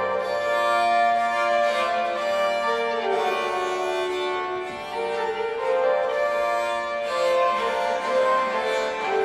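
Portative organ and a bowed string instrument, newly built after the one in Francia's painting and played upright between the knees, playing early music together in slow held notes.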